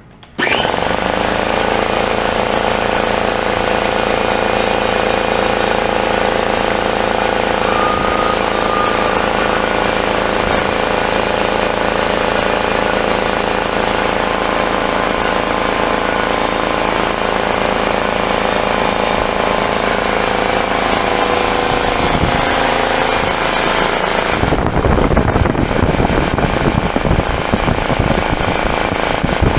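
Craftsman 33-gallon air compressor starting up about half a second in and running steadily as it builds pressure. Near the end its sound turns rougher and noisier.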